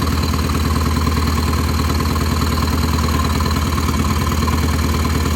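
Vintage British race motorcycle engine idling steadily on its first run after repair.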